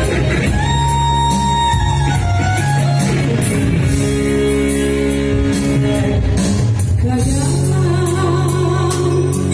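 Music: an instrumental passage with guitar and sustained held notes, and a singing voice with vibrato entering near the end.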